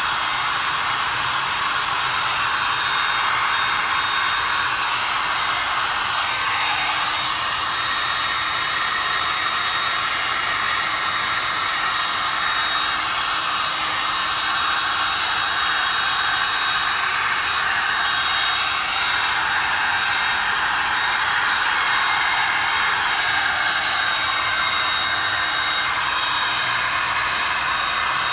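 Electric heat gun running steadily, blowing hot air over wet poured resin to pop surface bubbles and make the resin flow. A steady airy rush with a faint thin high tone above it.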